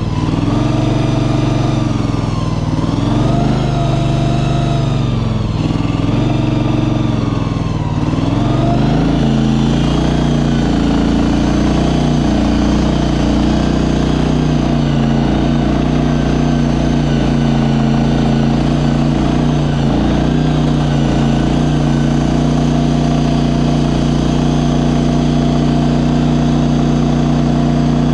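Engine of a ride-on shed mover running under load. Its pitch rises and falls several times in the first eight seconds or so, then it runs at a steady speed.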